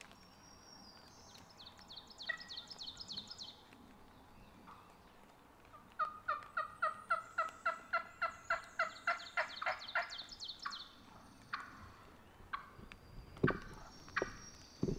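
A hen wild turkey yelping: a long, even run of about fifteen loud yelps, about three a second. Before it comes a brief run of high, quick chirps, and near the end a few sharp rustles and knocks in the dry leaves.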